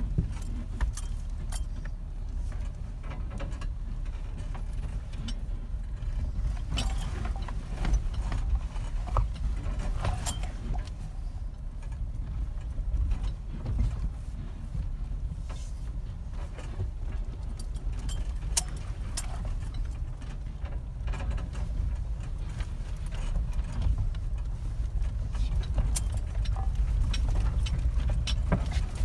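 Jeep driving slowly over a rocky dirt trail, heard from inside the cab: a steady low engine and tyre rumble, with frequent sharp clicks and rattles as it jolts over the rocks.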